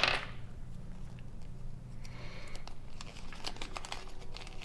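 Scattered small clicks and crinkles of a small folded paper instruction leaflet being handled and unfolded.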